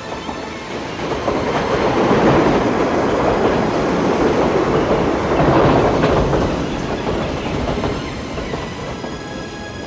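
A train passing on an elevated railway. Its rumble swells over the first two seconds, holds loud, then fades from about six seconds in.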